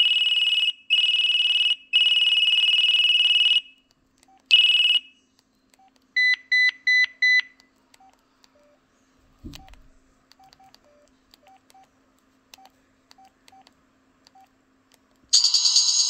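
LG Cosmos 3 flip phone's speaker playing preloaded alert tones: three long, high electronic beeps, then a single beep, then four short, lower beeps. A quiet stretch follows with small key clicks and faint keypad blips. Near the end a loud, noisy sound clip begins.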